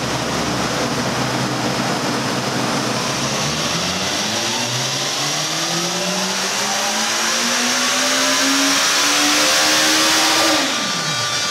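Suzuki Bandit 1250's inline-four engine making a full-throttle dynamometer pull in gear: the revs climb steadily for about ten seconds, then the throttle is shut near the end and the revs fall away quickly.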